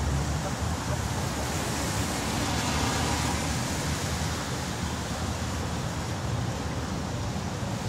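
Steady street traffic noise from passing cars, a little louder about three seconds in.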